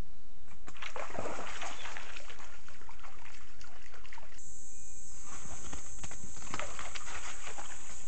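Animal footsteps crunching and scuffing on creek gravel in two irregular stretches, picked up by a trail camera's hissy microphone. A steady high hiss comes in about halfway.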